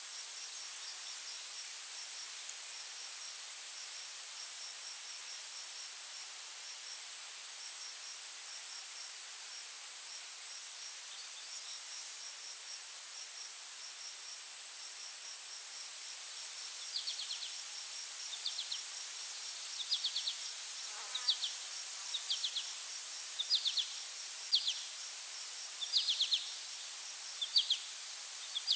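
Insect chorus in a nature-sound ambience: a steady high-pitched drone with rows of fast, faint ticking. A little past halfway, short falling chirps join in, about one a second, louder than the drone.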